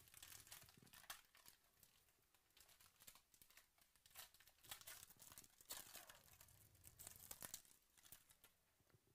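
Foil trading-card pack wrapper crinkling and tearing faintly as hands rip it open and peel it apart. It is a rapid run of small crackles, thickest at the start and again through the middle.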